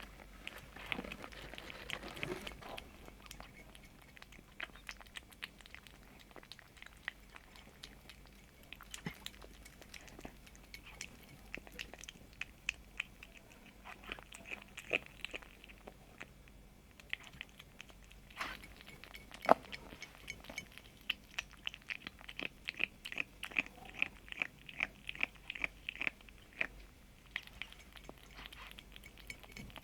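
A kitten chewing and crunching food: runs of small sharp crunches, about three or four a second at their thickest, with quieter pauses between runs.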